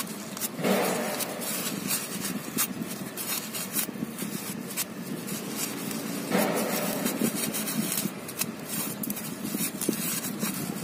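A paper rag rubbing and rustling against the oil drain bolt under a motorbike engine as it is wiped clean, with many small crackles and clicks and two louder rustles, about a second in and about six seconds in.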